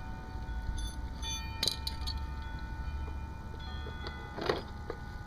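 Light metallic clicks and scrapes of pliers gripping and working a wire plug connector loose from a shop vac's power switch, a few sharp clicks over a steady low rumble and faint hum.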